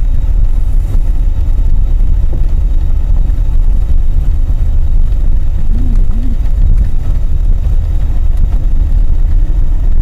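Car driving, heard from inside the cabin: a steady, loud low rumble of engine and road noise.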